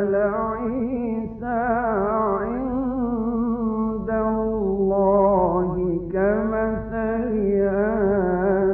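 A man chanting Quran recitation in a slow melodic style, drawn out in four long ornamented phrases with a wavering pitch and short breaks between them.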